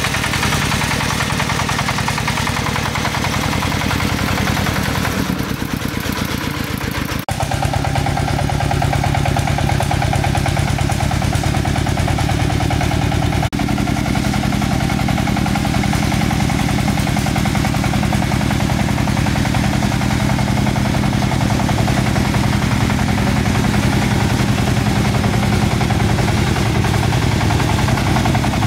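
An engine running steadily at a constant speed, its sound breaking off and changing abruptly about seven and thirteen seconds in.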